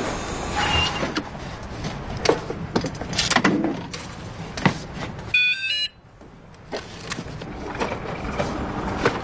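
Street ambience with passing traffic, broken by several sharp knocks. About five and a half seconds in there is a short chiming electronic tone, and then the sound drops almost to quiet for a moment.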